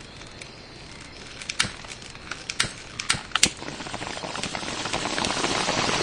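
Crackly wind buffeting on a bicycle-mounted camera's microphone while riding, growing louder, with four or five sharp clicks in the first half.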